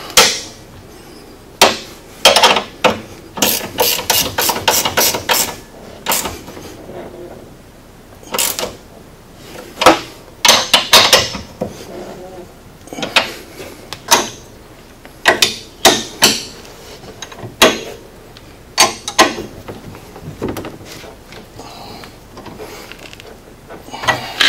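Hand wrenches clicking and clinking on the metal bolts and brackets as the sway bar clamp bolts and end-link adjusters are tightened, in scattered single clicks and knocks with a fast run of ratchet-like clicks about four seconds in.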